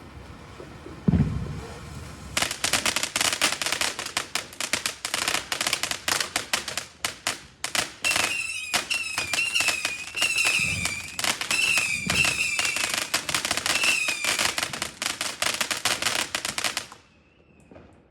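Chinese fireworks battery (cake) going off: a deep boom about a second in, then a dense, rapid crackle of many small bursts, with wavering whistles in the middle stretch. It cuts off suddenly near the end as the battery finishes.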